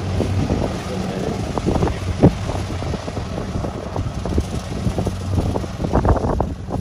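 Kubota DC-70 combine harvester's diesel engine running steadily under load as the machine cuts rice, with uneven noise over the hum and a brief thump a little over two seconds in.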